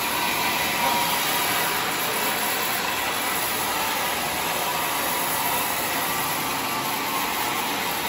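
Sawmill machinery running steadily while the saw is not cutting: an even mechanical whir with a faint steady tone.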